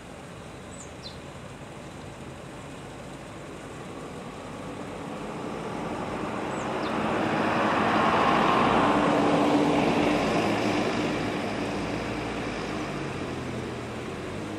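A vehicle passing by: a rumble that grows louder over several seconds, peaks about eight to ten seconds in, then fades away.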